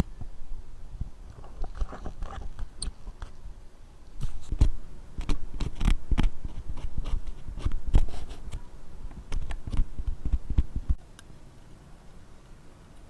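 Irregular clicks, taps and light scraping of small tools working on a wristwatch during repair. The sounds get busier about four seconds in and stop about eleven seconds in.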